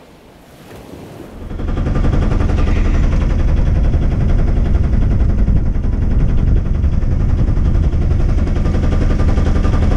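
A small sailboat's auxiliary motor running steadily under way, heard close as a loud, fast, even chugging beat. It comes in about a second and a half in.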